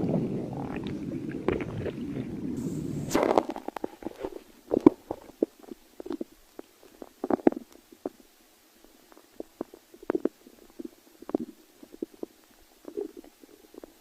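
A person's stomach growling: a continuous low rumble for the first three seconds or so, then a string of short, irregular gurgles and pops.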